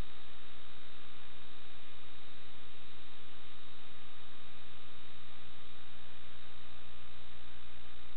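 Steady hiss with a constant electrical hum, unchanging throughout, with no distinct events.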